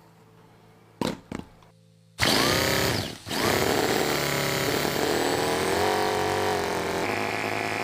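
Small methanol-fuelled model engine of an RC race car starting: two short bursts about a second in, then it catches a couple of seconds in and runs at high revs, its pitch wavering up and down, with a brief drop soon after catching.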